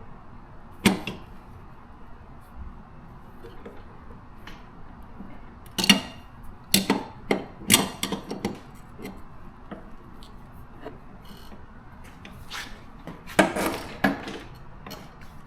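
Metal knocks and clinks of a wrench working the lawn mower's blade bolt as it is tightened: one sharp knock about a second in, a cluster of several between six and eight seconds in, and a few more near the end.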